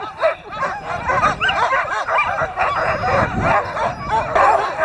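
Many harnessed sled dogs barking, yipping and whining together in a dense, unbroken din of overlapping calls: the excited clamour of a team eager to run.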